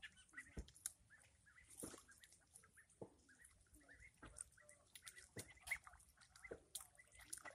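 Ducks calling faintly in short, scattered calls, with a few soft knocks in between.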